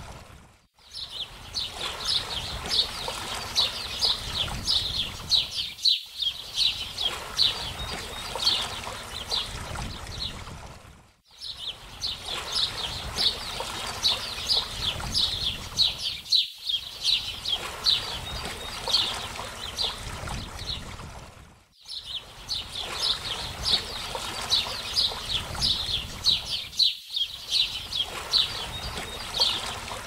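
Small birds chirping in rapid, high, quick notes over steady running water. The sound cuts out briefly every few seconds, and the same stretch repeats about every ten seconds, like a short looped nature recording.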